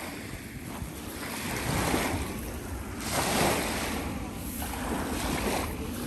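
Small lake waves washing up on a sandy shore, surging every second or two, with wind rumbling on the phone's microphone.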